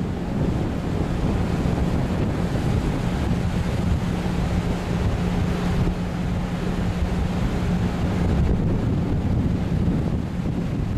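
Sea surf rumbling steadily, with strong wind buffeting the microphone. A steady low hum runs underneath until about eight seconds in.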